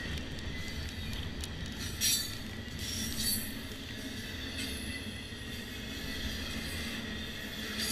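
Double-stack container train's well cars rolling past close by: a steady rumble of wheels on rail with thin, high wheel-squeal tones over it. Short sharp sounds come about two and three seconds in.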